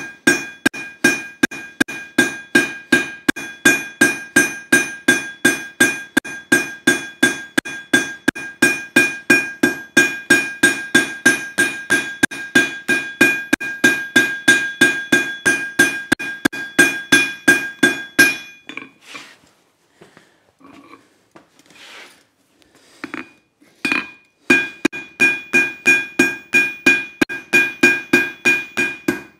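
Hand hammer beating red-hot steel bar on an anvil, drawing it out, about three blows a second, each blow setting the anvil ringing. The hammering stops about 18 seconds in for a few seconds of quieter, irregular knocks, then starts again near the end.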